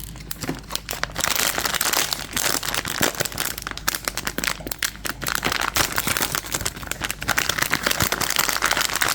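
Plastic packaging crinkling and rustling, with dense irregular crackles, as a blind box figure is unwrapped by hand.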